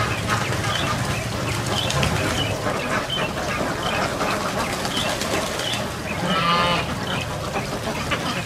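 A large flock of domestic laying ducks quacking, many calls overlapping. One louder, longer quack stands out about six seconds in.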